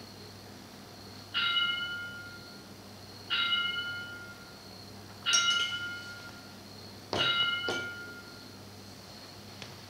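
A small bell struck five times, four strikes about two seconds apart and a fifth quickly after the fourth. Each strike rings out clearly and fades over about a second.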